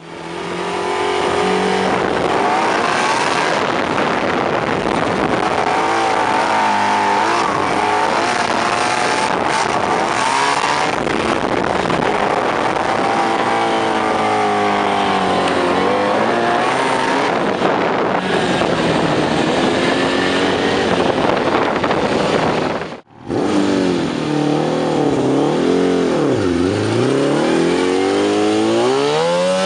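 Yamaha Rhino side-by-side with a swapped-in Yamaha R1 inline-four motorcycle engine, revving high, its pitch rising and falling again and again as it is driven hard. The sound cuts out for a moment late on, then the revving returns with quick rises and falls.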